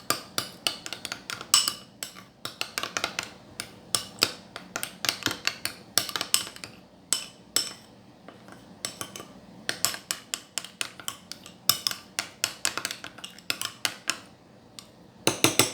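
A utensil repeatedly clinking and scraping against a bowl in quick, irregular taps, stirring food dye into glue.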